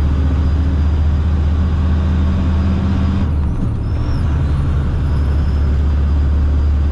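Dump truck engine and road noise heard inside the cab, a steady low drone. The engine note drops slightly a little after three seconds in.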